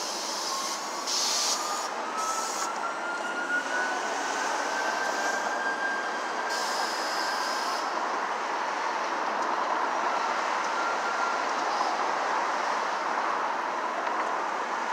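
Steady city traffic noise, with a vehicle's whine rising slowly in pitch over the first eight seconds.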